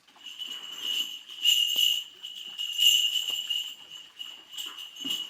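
A Korean shaman's ritual bell cluster (mugu bangul) being shaken, jingling in surges that swell and fade several times before it stops.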